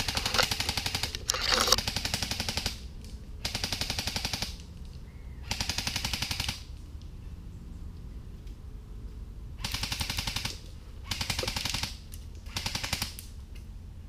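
Airsoft guns firing full-auto in short bursts of about a second each, about seven bursts with pauses between them.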